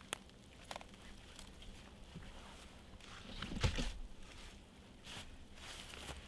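Footsteps in dry fallen leaves and the knock and scrape of a wooden pole being pulled from a pile of logs, loudest with a thump about three and a half seconds in, then rustling as the pole is stood upright.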